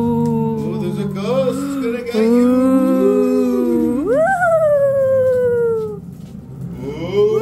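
Recorded Halloween sound effects: a long wavering ghostly wail, then a wolf-like howl that sweeps up and slowly falls away, starting again near the end.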